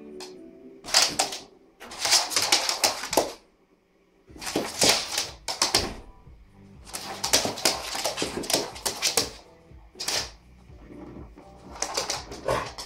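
A dog's claws, an American Staffordshire terrier's, clattering and skittering on a laminate floor in quick bursts of about a second each as it darts and lunges around.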